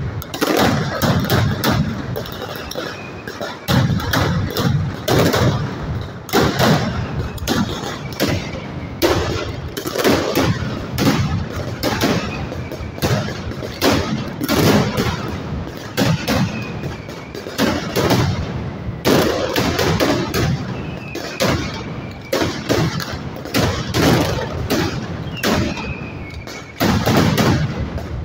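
Mascletà firecrackers going off in a dense, continuous barrage of loud, rapid bangs, with a few short falling whistles among them.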